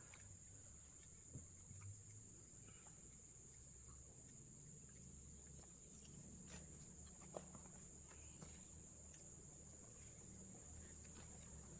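Near silence: crickets trill steadily and faintly at a high pitch, with a few faint clicks.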